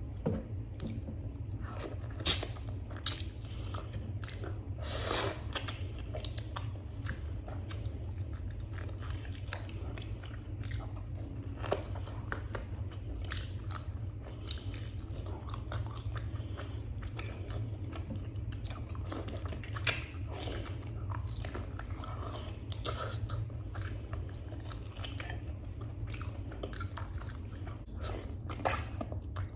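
Close-miked chewing and biting of freekeh with beef: irregular wet mouth sounds and short crunchy clicks, over a steady low hum.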